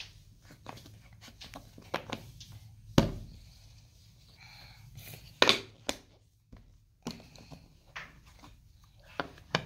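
Wooden peg puzzle pieces tapping and knocking against the wooden board as they are fitted into their slots, in scattered taps with two louder knocks, about three seconds in and again about halfway through.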